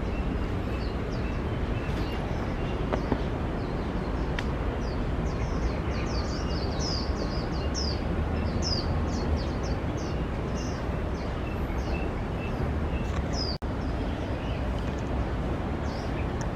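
Birds chirping outdoors: from about four seconds in, a quick run of short, high chirps, with fainter repeated notes beneath, over a steady low background rumble. About three seconds before the end, the sound cuts out for an instant.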